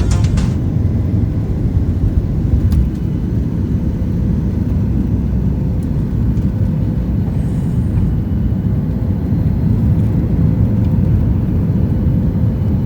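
Airliner cabin noise: a steady low rumble of the jet engines and airframe as the plane moves on the ground.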